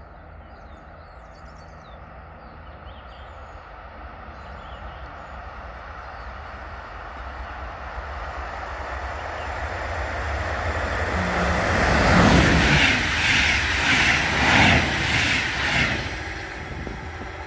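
A train approaching and passing on the track: a steadily growing rush of wheels on rails, peaking with a rhythmic clatter of the wheelsets about a second apart, then starting to fade.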